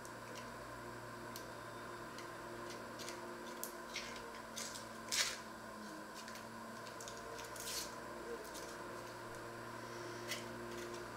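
Dry onion skins crackling and rustling as an onion is peeled with a small knife: scattered short crisp clicks, the loudest about five seconds in, over a steady low hum.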